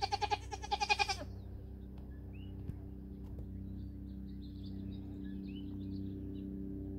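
Nigerian Dwarf dairy goat bleating once, a loud quavering bleat about a second long at the start.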